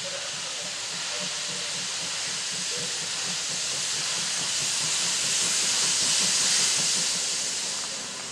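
BR 52 steam locomotive approaching, with a loud hiss of escaping steam from around its cylinders and a low quick beat beneath. The hiss swells to its loudest about six seconds in and eases off near the end.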